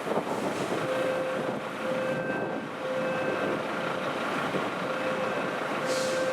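Fire engine running with wind noise on the microphone, while an electronic beeper sounds a low beep on and off about once a second, pausing briefly midway. A short hiss comes near the end.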